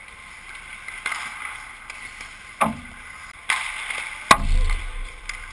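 Ice hockey play: skate blades scraping the ice and several sharp knocks of sticks and puck, the loudest about four seconds in, followed by a low thud.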